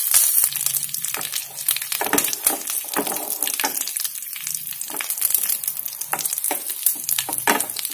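Fresh curry leaves and dry red chillies frying in hot coconut oil with mustard seeds in a small nonstick pan: a South Indian tempering at the spluttering stage. It sizzles loudly at first, then settles into steady crackling with many sharp pops.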